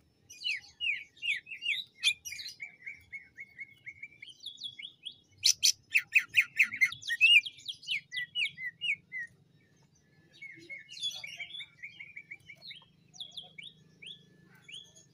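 A leafbird (cucak ijo) singing a fast, varied song of chattering notes and quick down-slurred whistles. The loudest rapid burst comes a little before halfway, and the song breaks off briefly about two-thirds through before going on.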